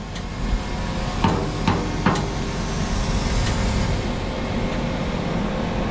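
Steady mechanical running noise with three sharp knocks between about one and two seconds in.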